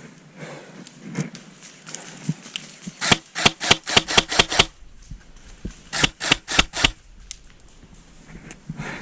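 Airsoft gun firing two rapid strings of shots, about ten and then about five, at roughly five or six shots a second.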